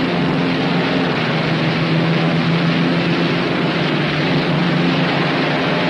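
The twin Pratt & Whitney R-2800 radial engines of a Northrop P-61 Black Widow running at a steady speed during the final pre-takeoff check, a constant drone with a low hum.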